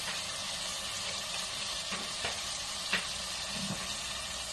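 Potatoes and tomatoes sizzling steadily in a hot pressure-cooker pot, with a few light knocks, likely the spice spoon against the pot.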